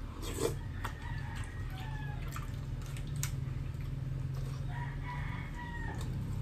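A rooster crowing twice, each crow a drawn-out call of a second or more, falling slightly at the end. Sharp light clicks, as of a spoon against a bowl, and a steady low hum sound underneath.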